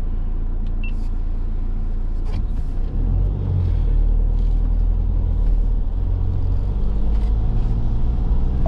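Motorhome engine running with a low rumble, growing louder about three seconds in as the van pulls away and picks up speed.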